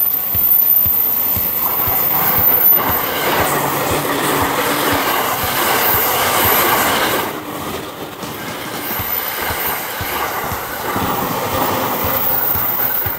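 A green-and-orange-striped electric commuter train passing close by, its wheels clattering rapidly over the rail joints, with a container freight train rolling past on another track. The sound is loudest in the first half, dips slightly around the middle, then carries on.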